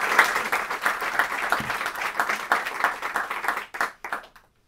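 Audience applauding, dying away into a few last scattered claps about four seconds in.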